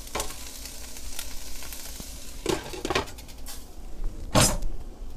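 Drained, still-wet diced carrots tipped into a skillet of butter, onion and celery, sizzling steadily, with a few clinks and knocks of cookware against the pan and one sharper clack about four seconds in.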